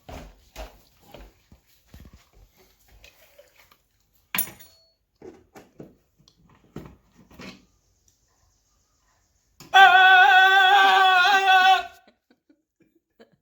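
Scattered light clicks and taps from hands working on a doorbell chime and its wires, with one sharper knock about four seconds in. About ten seconds in comes a single drawn-out, wavering high cry lasting about two seconds, which cuts off abruptly and is the loudest sound.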